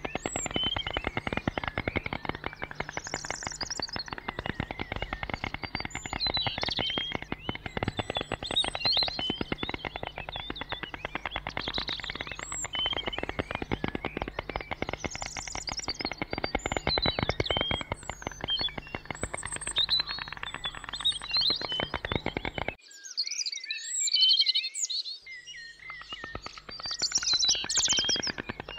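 A rapid, dry rattling clatter, typical of white storks clattering their bills, with small songbirds chirping high over it. The rattle breaks off near the end, leaving just the chirping.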